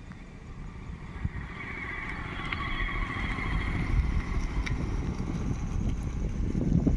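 A motor scooter's small engine running as it rides up the road toward the microphone, growing steadily louder as it nears.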